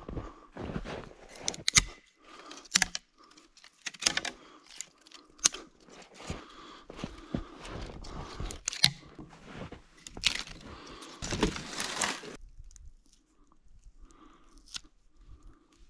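Irregular crunching and cracking of dry twigs and bark as a person climbs a conifer trunk, gripping its dead side branches. The noise dies down to faint rustling about three-quarters of the way through.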